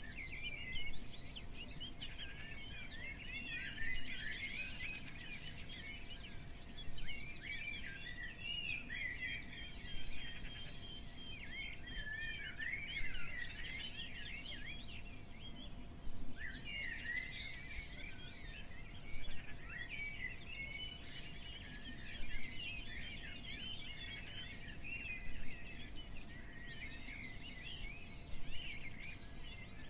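Many small birds chirping and twittering at once in a dense dawn chorus, over a low rumble of outdoor background noise and a faint steady hum.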